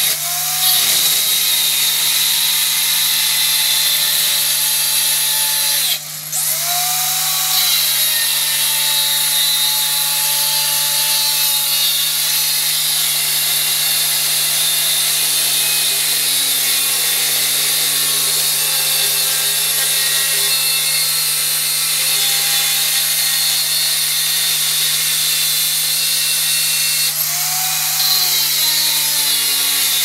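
Angle grinder running continuously against scrap sawmill saw steel, grinding and cutting the metal. There is a short dip about six seconds in, where the disc briefly comes off the work.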